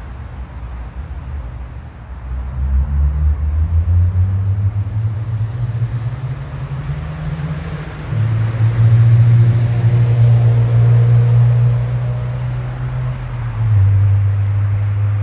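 Low, steady rumble of a motor-vehicle engine running close by. Its pitch steps up a few times, and it grows louder about two seconds in and loudest from about eight seconds in.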